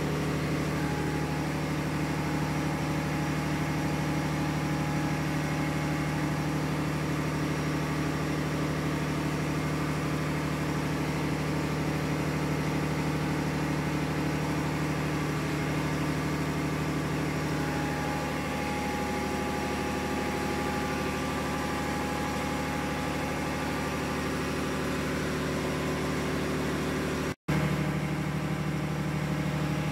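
Steady drone of running ship's engine-room machinery: a constant low hum with several steady tones above it. It drops out for an instant near the end, then carries on unchanged.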